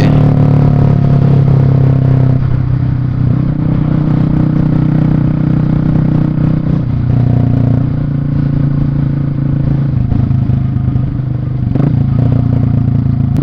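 Yamaha Fazer 250 motorcycle with a loud exhaust, running steadily under way, its engine note shifting in pitch a few times as the throttle changes.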